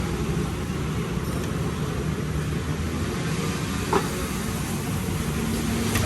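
An engine running steadily with a low rumble, and a single short click about four seconds in.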